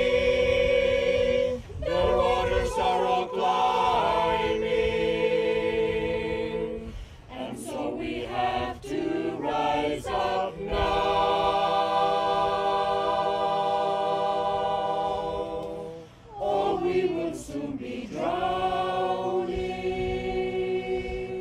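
A choir singing, holding long chords for several seconds at a time, with short breaks between phrases.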